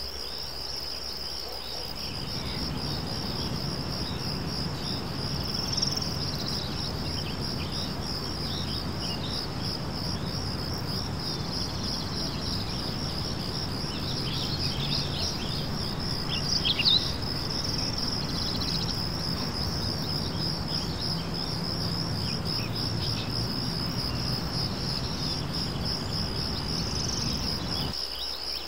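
Steady, high-pitched, rapidly pulsing chirring like crickets, with a few bird chirps about halfway through over a low background rumble.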